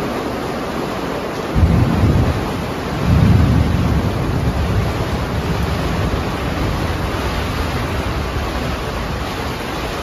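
Thunderstorm heard from inside a tent: steady heavy rain and wind noise, with deep thunder rumbling twice, briefly about a second and a half in and longer about three seconds in.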